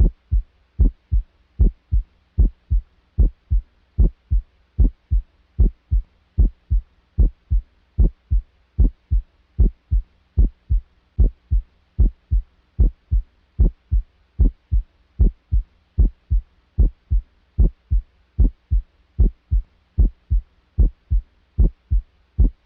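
Normal heart sounds heard through a stethoscope: an even run of short low thumps, the first and second heart sounds, about two a second, with clear silences between them and no murmur. A faint steady hum lies underneath.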